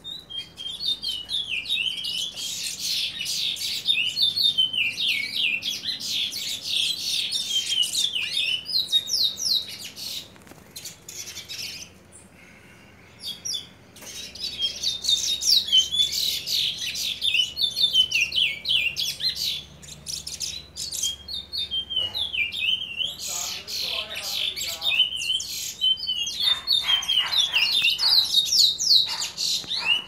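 Young chestnut-bellied seed finch (curió) singing a fast, twittering run of rapid high chirps. The song breaks off for a few seconds about ten seconds in, then resumes.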